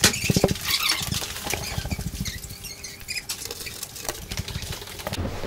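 Footsteps and handling noise from a handheld camera carried up a stairwell and through a door: an irregular run of knocks, scuffs and rustles, loudest about the first second.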